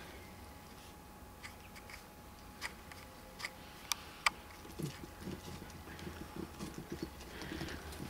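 Faint gravel sounds from puppies moving on a gravel path: a few sharp separate clicks of pebbles, then from about five seconds in a run of soft, uneven crunching and scuffing as a puppy shifts its paws and noses along the bank.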